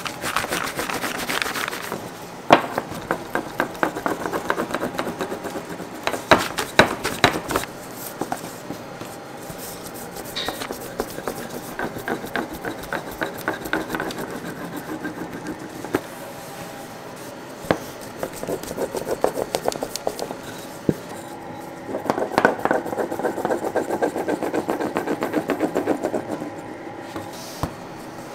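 Rapid rubbing and light tapping from hand work in a bakery, in several stretches a few seconds long with short pauses between them.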